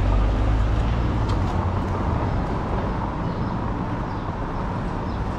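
Outdoor city ambience with a steady low rumble, heaviest in the first second or so and then easing a little.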